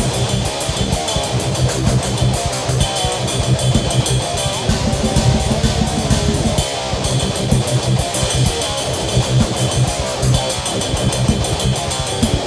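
Rock music with guitar and drums, on a fast, driving beat.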